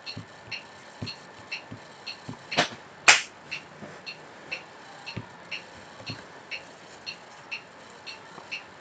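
Steady, regular ticking about twice a second, with two short, louder noisy bursts about two and a half and three seconds in.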